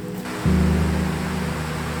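Background music with steady held notes; about half a second in it turns louder, with a deep low layer and a hiss-like wash coming in.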